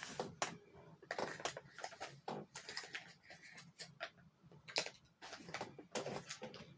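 Scattered, irregular soft clicks and taps of a smartphone being handled while a picture is lined up and taken.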